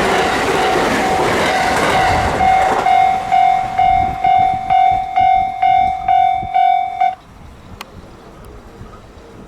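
A train passing, its running noise dying away about three seconds in, while a level-crossing alarm rings in steady repeated dings, about two a second. The alarm cuts off suddenly about seven seconds in, as the crossing clears.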